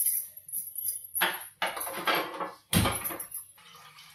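Aluminium cooking pots clattering and knocking on a gas stove, a handful of sharp metallic knocks with the loudest about three seconds in. Near the end comes a quieter hiss of water starting to pour into the pot.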